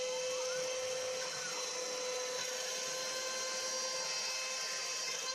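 Homemade CNC router running: a steady motor whine with a few short tones that rise and fall in pitch, the kind stepper motors make as they speed up and slow down.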